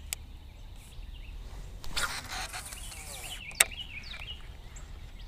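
A cast with a baitcasting reel: a whirring rush of the spool paying out line about two seconds in, lasting just over a second, then a sharp click as the reel is engaged. Birds chirp throughout.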